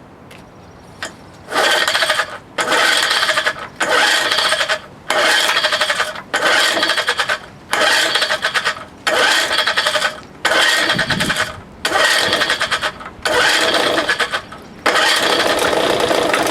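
1970 Johnson 4 hp two-cylinder two-stroke outboard being cranked by its recoil pull-starter, about eleven pulls in a row, each about a second long with a short pause between, the last pull longer. The engine has only a shot of gas squirted into the cylinder head, not the carburettor, and is being pulled over to see whether it will fire.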